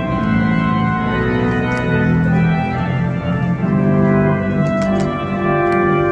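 Organ music: slow, sustained chords that change every second or so, with a few faint ticks near the end.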